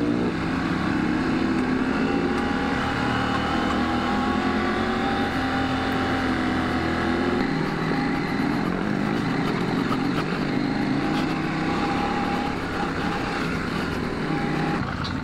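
Adventure motorcycle engine running steadily while riding, its pitch shifting slightly partway through.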